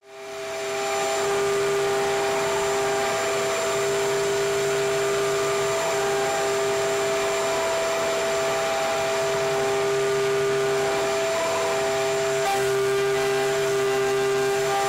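CNC router running: a steady motor whine with a rushing hiss that fades in over the first second and then holds level.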